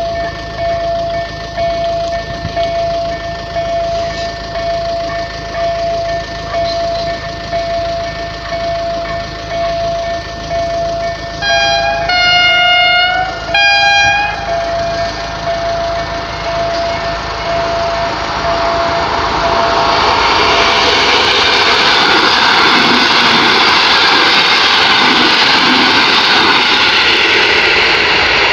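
Level-crossing warning signaller (EDG-2000 with Tonsil loudspeakers) sounding a repeating electronic beep while the barriers are down. About twelve seconds in, a train sounds its two-tone horn high-low-high, and from about twenty seconds the train passes the crossing with a loud, steady running noise.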